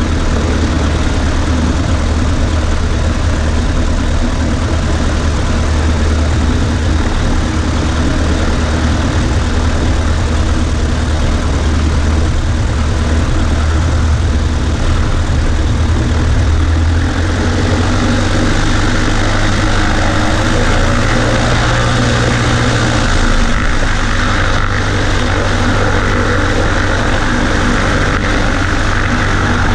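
Cessna 140A's engine and propeller running steadily in flight. A little past halfway, the engine note steps up slightly in pitch and grows brighter.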